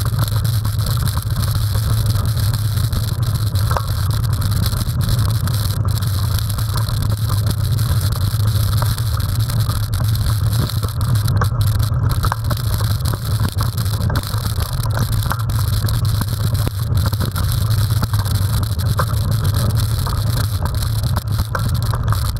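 Mountain bike riding fast over a dirt singletrack, heard through a bike-mounted camera: a steady low rumble of wind and vibration on the microphone, with scattered clicks and rattles from the bike over the trail.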